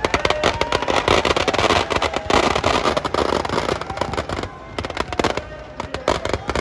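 Firecrackers bursting in quick, crackling succession as a Dussehra effigy burns, densest over the first few seconds and thinning to scattered bangs toward the end.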